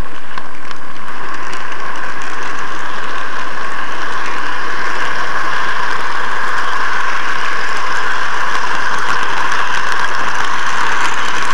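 N gauge model train running along the track, heard close up from a camera riding on it: a steady whirring noise of the motor and wheels on the rails, growing a little louder about four seconds in.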